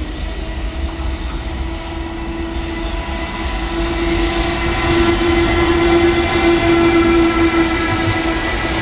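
Freight train hauled by a JR Freight EF210 electric locomotive approaching, with a steady whine and overtones over a low rumble. It grows louder about halfway through and the whine stops near the end.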